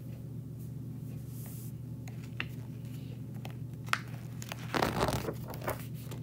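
Paper pages of a picture book being turned: soft crinkles and clicks, with a louder rustle about five seconds in, over a low steady hum.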